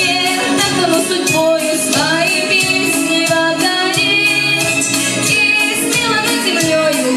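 A female voice singing a pop song over a backing track with a steady beat, the melody gliding between held notes.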